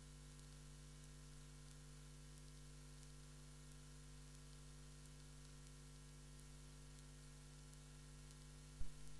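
Near silence: a steady electrical hum and hiss from an open, idle microphone line, with a single thump near the end.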